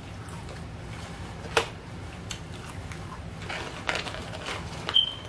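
Close-up eating sounds of French fries being chewed, with a few sharp mouth clicks and a brief crinkle from the paper fry carton as more fries are picked up about four seconds in, over a steady low hum.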